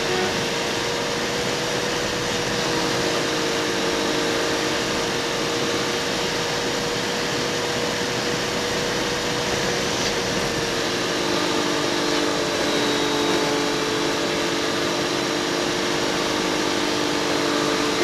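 Semi truck's in-cab engine and road noise picked up by a dash cam and played sped up, so it runs as a steady hiss with a held droning tone; a second, lower drone joins about halfway through.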